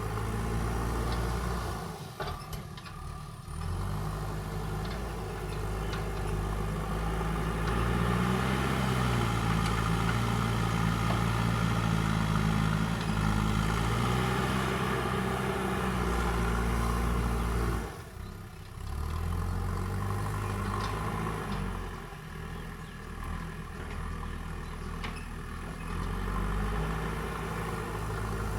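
Diesel engine of a JCB backhoe loader working, its pitch rising and falling as the machine digs and loads. It twice drops back briefly before picking up again.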